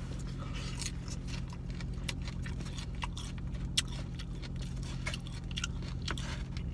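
Eating sounds: a utensil clicking and scraping on a takeout container and crisp salad being picked up and crunched, as many short irregular clicks with one sharper knock near the middle, over a steady low hum.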